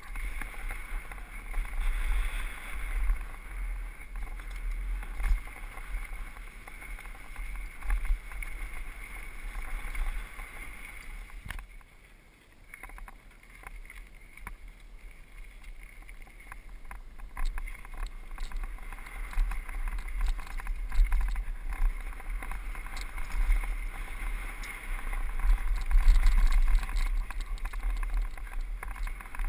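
Mountain bike descending a dirt trail: steady wind rumble on the microphone, tyre noise on dirt, and the frame rattling and clicking over bumps. The noise drops briefly about twelve seconds in, then builds again.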